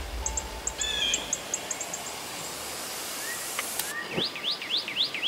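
Songbirds singing and chirping in the woods at the field edge: short high chirps and warbled notes, then a fast, even run of repeated rising notes near the end.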